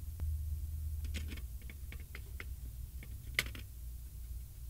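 Irregular small clicks and taps of a Phillips screwdriver and small screws against the mainboard's sheet-metal casing as the board is screwed down, the loudest about three and a half seconds in, over a low steady hum.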